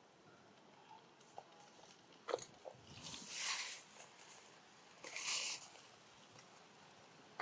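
Macaque drinking from a pond, slurping at the water's surface: a few soft clicks, then two distinct wet slurps about two seconds apart.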